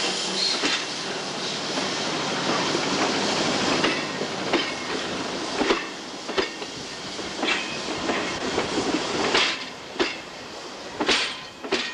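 Passenger train coaches rolling slowly past, a steady rolling noise with sharp clacks every second or so from about four seconds in as the wheels cross rail joints.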